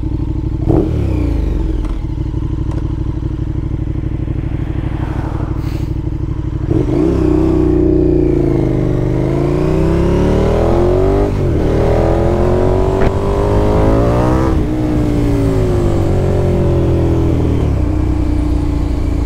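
KTM 1290 Super Duke R's V-twin engine idling, then pulling away about seven seconds in and revving up through the gears, its pitch rising and dipping with each shift.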